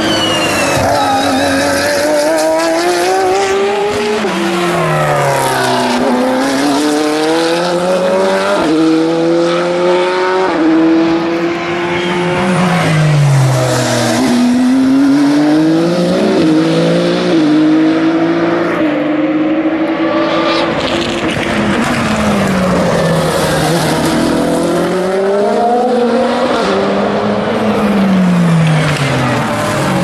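Several endurance race cars, prototypes and GT cars, passing in close succession at a slow corner, their engines overlapping throughout. Engine notes repeatedly fall away as the cars slow, then climb and step up gear by gear as they accelerate out.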